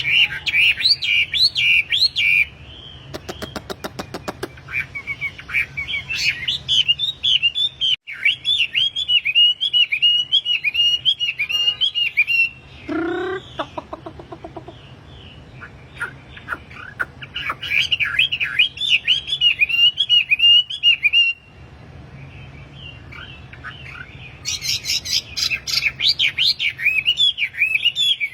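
Wambi songbird singing in long runs of rapid, chattering up-and-down notes, broken by short pauses. A fast run of clicks comes about four seconds in, and a brief lower call about thirteen seconds in, over a faint steady low hum.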